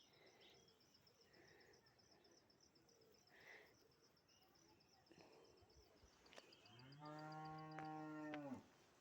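A cow mooing once, a steady call of nearly two seconds near the end, over a faint, fast, high-pitched insect trill.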